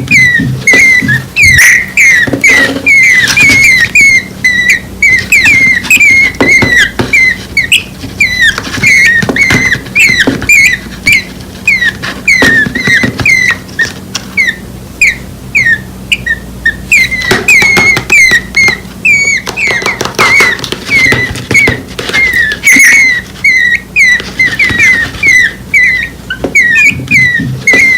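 Nestling birds, under a week old, giving a steady stream of short, high begging cheeps, several a second: hungry chicks calling for the parent.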